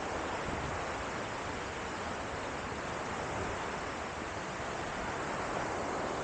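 Steady rush of flowing water from a mountain stream and waterfall, an even hiss with no breaks.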